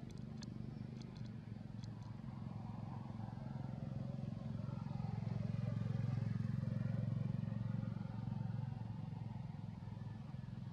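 Engine of a passing motor vehicle: a low steady hum that grows louder to a peak about six seconds in, then fades. A few faint clicks come in the first two seconds.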